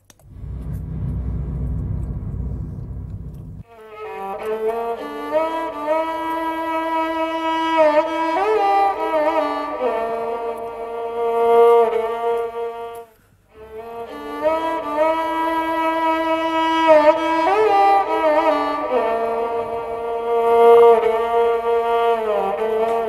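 Background music: a bowed-string melody with sustained, sliding notes. It opens over a few seconds of low rumble and breaks off briefly about thirteen seconds in before resuming.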